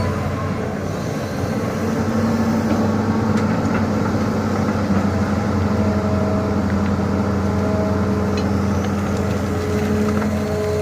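Excavator's diesel engine running steadily under load, its hum shifting slightly in pitch.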